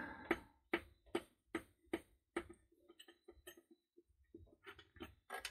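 Faint clicks of small plastic and spring parts being worked loose by hand from a robotic mower's cutting-height adjustment cup: a run of sharp clicks about two or three a second, then scattered lighter clicks and one sharper click near the end.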